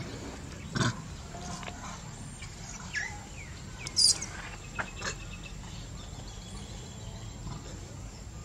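Macaque monkeys giving a few short squeaks and squeals over a steady low background, with a rising squeak about three seconds in and the loudest, highest-pitched squeal about a second later.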